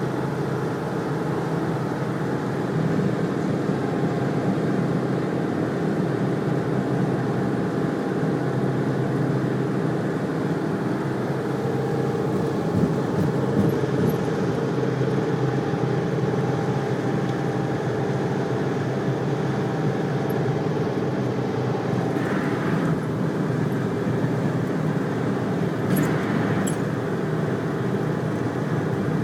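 Steady, unbroken noise of vehicles travelling at speed, with a short hiss about three-quarters of the way through and a couple of sharp clicks near the end.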